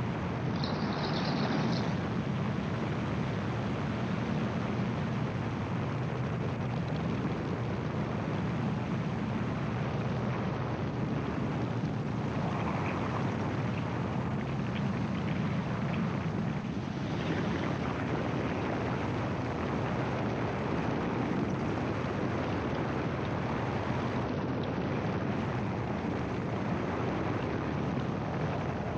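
Gyroplane's engine and propeller running with air rushing over the open cockpit, a steady drone during the final approach to landing.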